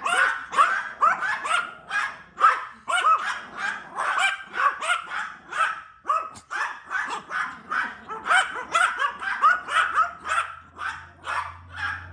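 Yorkshire terriers barking rapidly and continuously, high-pitched overlapping yaps at several a second, set off by a new pet water fountain they are not used to. A low steady hum comes in near the end.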